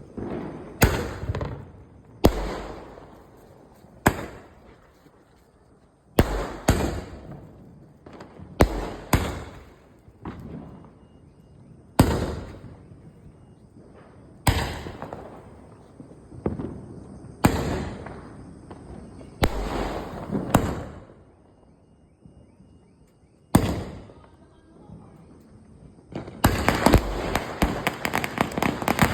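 Cock Brand firecrackers going off: loud single bangs every one to three seconds, each trailing off in an echo, then a fast run of crackling bangs near the end.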